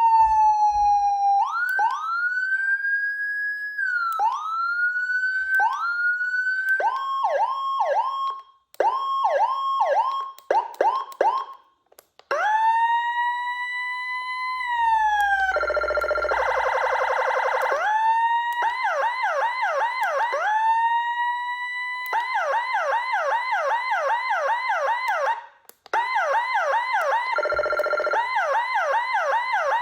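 HHS V3 electronic siren stepping through its tone patterns, switching every few seconds between them. It gives a slow falling wail, a run of rising whoops, quick yelps at about three to four a second, a long slow rise, and a harsh buzzing horn tone, with short silent gaps between some of the patterns.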